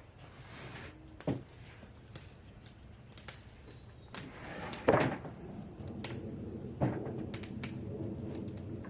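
A few sharp wooden knocks and thuds, about a second in, near five seconds and near seven seconds, as cedar boards are handled. A faint low steady hum comes in partway through.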